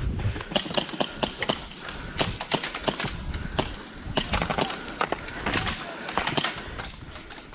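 Rapid, irregular clusters of sharp clicks and knocks.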